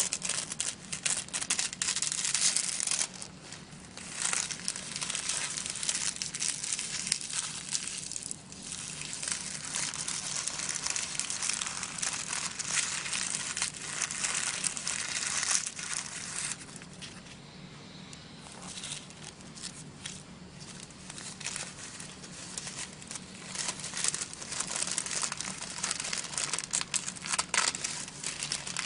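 Tissue paper crinkling and rustling as it is handled and torn by hand, dense irregular crackle with a few quieter stretches.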